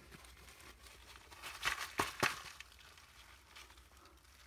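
Off-camera handling of shipping packaging: a brief burst of rustling and crinkling about one and a half seconds in, ending in two sharp clicks a quarter of a second apart.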